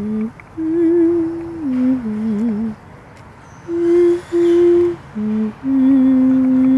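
A person humming a slow melody close to the microphone: long held notes that step between a few pitches, with short pauses between phrases.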